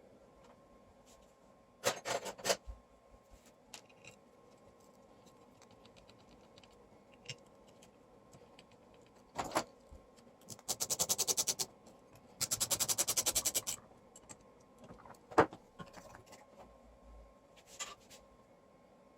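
Hand work on an amplifier during repair: scattered clicks and knocks of tools and parts, with two runs of rapid, even clicking, each about a second and a half long, near the middle. A faint steady tone sits under it.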